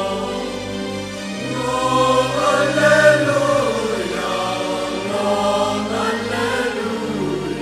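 Mixed youth choir of boys' and girls' voices singing a hymn in held chords, swelling louder about two to three seconds in.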